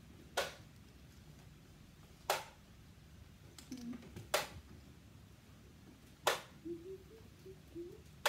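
Darts hitting a dartboard one after another, a sharp click about every two seconds.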